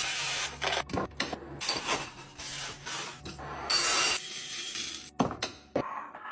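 Items being rubbed, scraped and shuffled by hand as things are restocked and put away. There are scattered sharp clicks and taps, and the loudest scrape comes about four seconds in.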